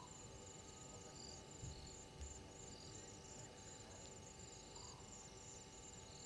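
Faint night insect chorus of crickets: a continuous high pulsing trill, with short chirps from another insect repeating about every second and a half.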